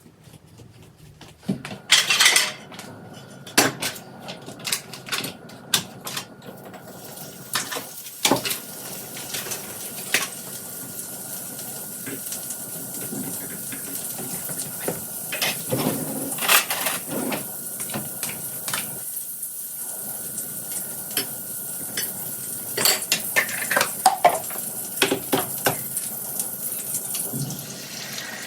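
Dishes and cutlery clattering and clinking, with a steady hiss like a running tap starting about six seconds in.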